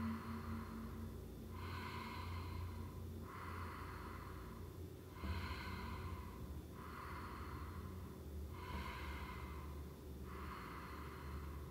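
A person's strong, evenly paced breathing in time with a seated circling twist exercise, about seven breaths each lasting a little over a second, with short gaps between them.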